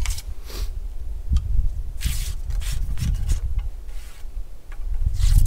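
Ramrod scraping down the barrel of a flintlock smoothbore in several strokes, ramming home a load of powder and shot, over a low rumble.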